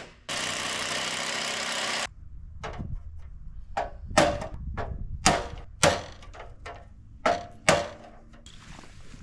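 Hands-on work at an old Pushmatic electrical panel: a steady noise for about two seconds that starts and stops sharply, then about seven sharp knocks and clunks at uneven intervals.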